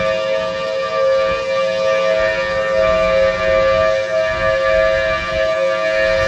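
Outdoor emergency warning siren sounding a steady tone that holds one pitch, during a scheduled siren test.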